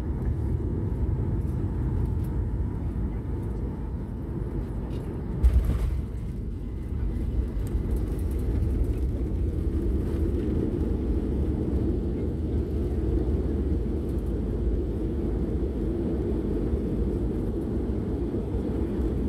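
Cabin noise of a Boeing 737 landing: a steady low rumble of engines and airflow, a sharp thump about five and a half seconds in as the wheels touch down, then a louder rumble as the jet rolls and slows on the runway with its spoilers raised.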